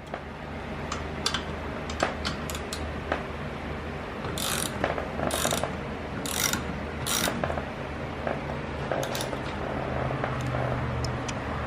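Ratchet wrench tightening bolts during metal cart assembly: scattered clicks, and four short runs of ratcheting between about four and seven and a half seconds in, over a steady low hum.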